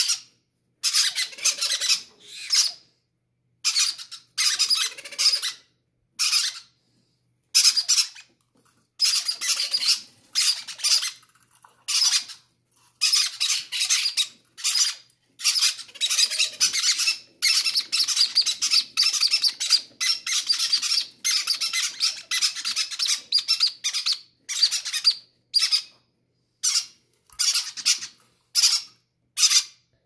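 Green-cheeked conure chicks giving harsh, hissy begging calls, one after another with short gaps, clamouring to be fed. The uploader takes such greedy begging as a sign of healthy chicks.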